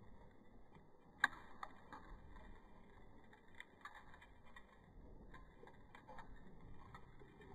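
Faint, irregular crackling and ticking of burning wood embers, with one sharper crack about a second in.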